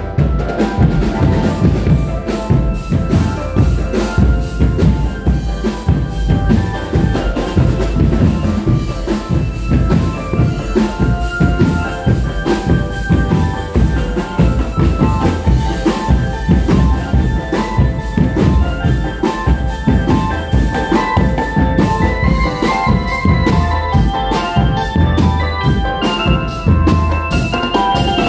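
Drum band playing live: bass drums and other drums beat fast and densely, with cymbals, under an electric keyboard melody that comes through more clearly in the second half.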